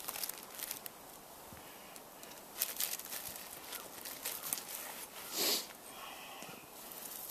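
Faint rustling and small clicks of hands handling char cloth and a plastic zip bag, with a short, louder rush of noise about five and a half seconds in.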